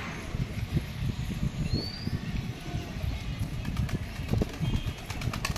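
Pigeons flapping their wings as they circle and come in to land on a rooftop perch, with a quick run of wingbeat clicks near the end. Wind buffeting the microphone sets up an uneven low rumble, and a short high rising chirp sounds about two seconds in.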